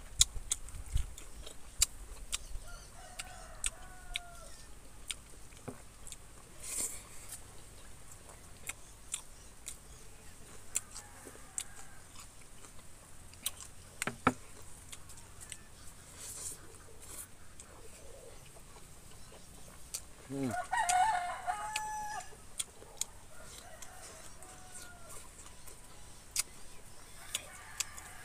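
A rooster crows once, loudly, about twenty seconds in, in one drawn-out call of about a second and a half. Fainter chicken calls come a few other times, over scattered short clicks.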